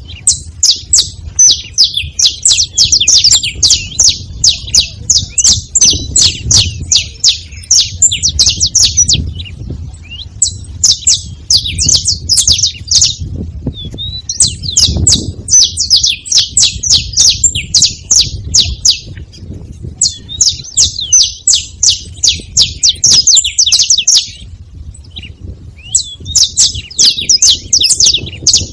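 Saffron finch singing in bouts of fast, high chattering notes, each several seconds long with short pauses between. Frequent sharp clicks and a low rumble run underneath.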